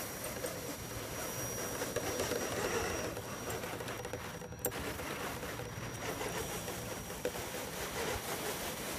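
Small electric motor and gear drive of a radio-controlled scale truck whirring steadily as it crawls through snow, with a thin high whine over it during the first half.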